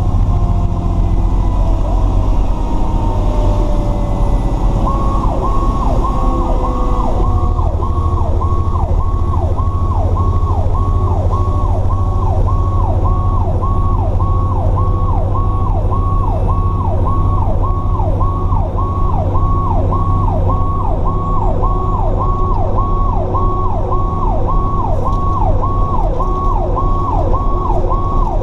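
Fire apparatus running with its siren on a call, heard from inside the cab over the steady drone of its diesel engine. For the first few seconds a siren tone slides slowly down in pitch. From about five seconds in, an electronic siren sweeps quickly up and down, about one and a half cycles a second.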